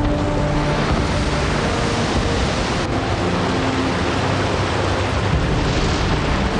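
Hurricane storm noise: wind and driving rain and water, a loud, dense and steady rushing, with a brief break about three seconds in where the scene changes.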